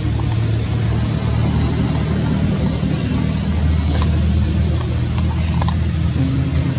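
A motor vehicle's engine running steadily, a continuous low rumble.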